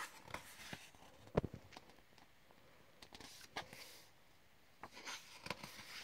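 Paper rustling and light knocks as a coloring book is handled and its pages turned, with one sharper knock about a second and a half in.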